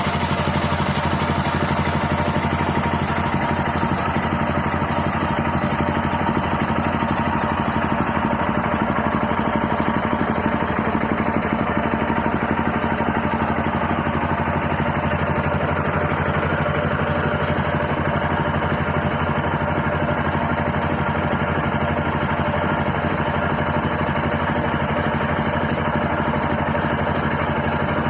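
Yamaha XT660Z single-cylinder engine idling steadily.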